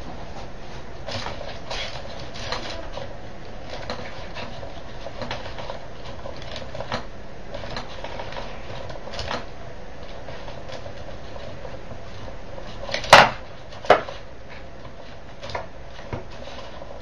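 Hammer, swung by a small humanoid robot, striking a wooden board: two loud knocks about 0.7 s apart roughly 13 seconds in, with scattered light taps and clicks before them over a steady low hum.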